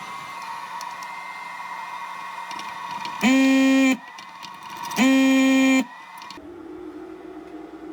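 Hot air rework station blowing with a steady whine, broken by two loud beeps about a second and a half apart; the blower's whine stops soon after the second beep, leaving a lower hum.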